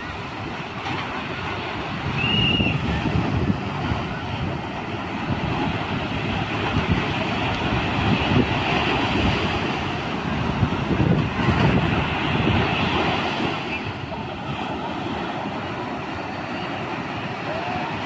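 Sea surf breaking and washing up a sand beach: a steady rush that swells louder about two seconds in and again in the middle.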